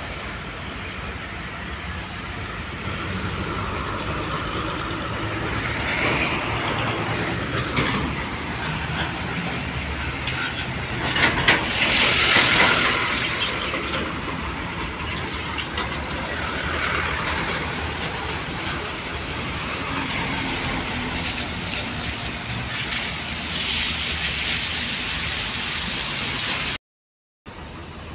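Steady outdoor noise of trucks and road traffic, with a louder hissing rush about twelve seconds in. The sound drops out briefly near the end.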